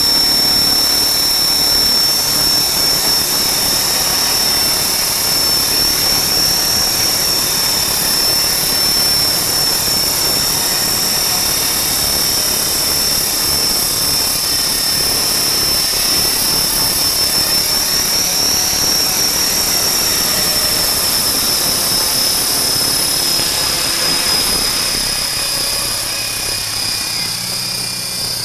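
Align T-Rex 450 V2 electric RC helicopter in flight, fitted with a five-blade main rotor and four-blade tail rotor. There is a steady high motor and gear whine over the whir of the rotors, and the whine rises slightly in pitch a little past halfway.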